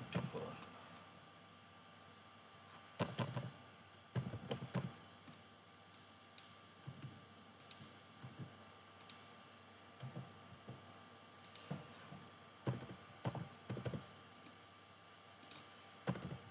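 Typing on a computer keyboard: short clusters of key clicks separated by pauses while dates and times are entered.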